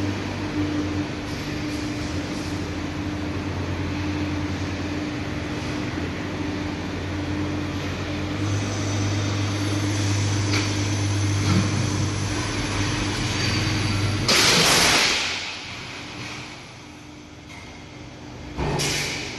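Steady machine hum with a low drone and a fainter higher tone. Late on, a loud rushing noise lasts over a second, after which the hum drops away, and a second short rush follows near the end.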